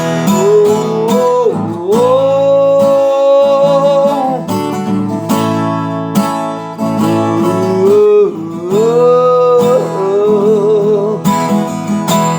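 Gospel praise song music: strummed acoustic guitar under a sliding lead melody line, which wavers with vibrato near the end.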